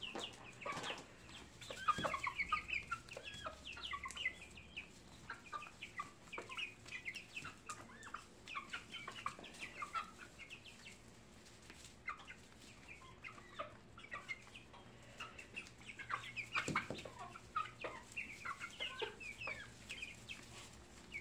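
A flock of young chickens clucking and chirping while they feed on corn on the cob, many short high calls throughout, with a couple of sharp knocks about 2 and 17 seconds in.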